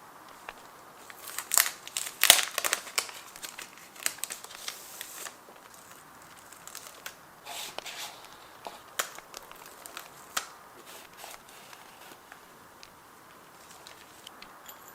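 Paper being handled: crinkling and rustling, loudest in a quick cluster about two seconds in, then scattered small taps and crackles.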